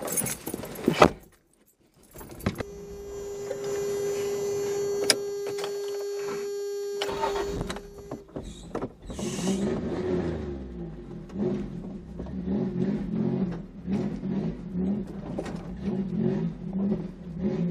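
Pickup truck engine running in four-wheel drive as it crawls over a rocky trail, heard inside the cab. A steady high whine holds for about five seconds, then the engine runs unevenly and pulses with small knocks.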